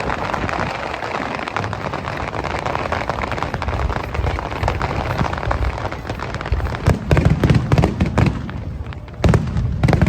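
Fireworks going off: a dense, continuous crackling for the first several seconds, then a quick run of loud bangs about two-thirds of the way in and another cluster near the end.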